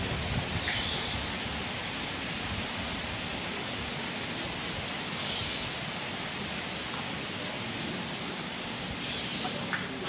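Steady outdoor background hiss with rustling, and three faint, brief high sounds about four seconds apart.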